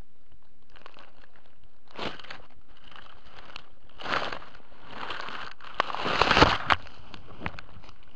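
Dry leaves and brush crunching and rustling under footsteps in several bursts, loudest a little past the middle, with a few sharp snaps like twigs breaking.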